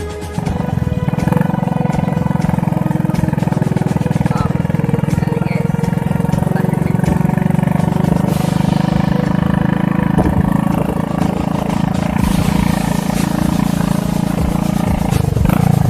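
A small engine running steadily at an even speed, with a fast, even firing pulse; it starts about half a second in, taking over from music.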